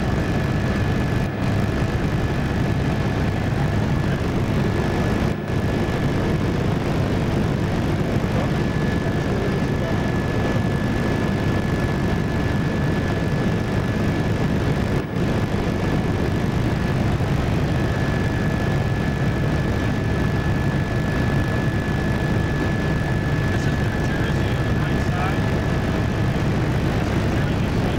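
Helicopter engine and rotor noise heard from inside the cabin, running steadily in level flight, with a thin steady high whine over it.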